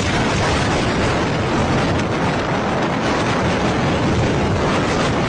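Steady, loud rush and rumble of strong storm wind blowing against the microphone.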